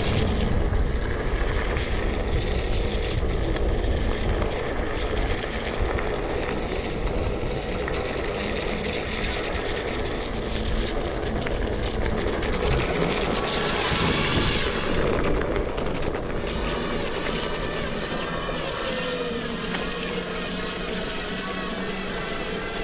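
Wind rushing over the microphone and a tyre rolling over wet gravel as a one-wheeled electric board rides a trail, with the board's motor whine dipping and rising near the end.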